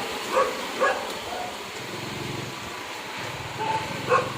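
A dog barking: two short barks about half a second in and two more near the end. Under them a low steady hum, like an engine running, sets in about two seconds in.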